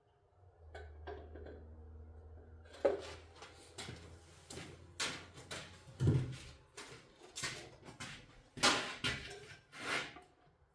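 A run of knocks and clatters, like metal parts and containers being handled and set down, over a low steady hum that stops about halfway through.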